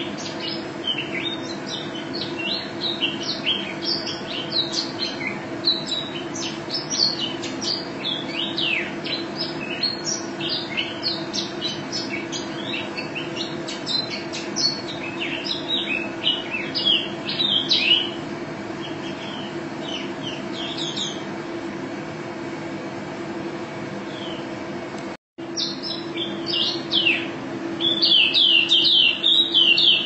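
Female white-eye (pleci) singing in a cage: long rolling runs of rapid, high-pitched chirping notes, which break off for a few seconds after the middle and then start again, densest near the end. A steady low hum runs underneath.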